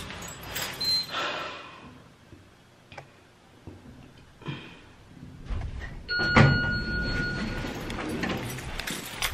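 Elevator arriving: a steady electronic tone sounds about six seconds in, and the elevator's sliding doors open.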